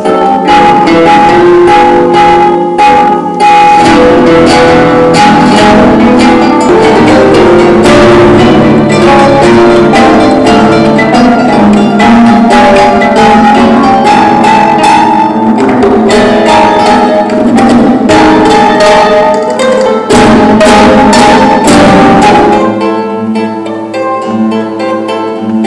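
Classical nylon-string guitars playing together: plucked melody notes over frequent sharp strummed chords. Near the end it thins to a single guitar playing.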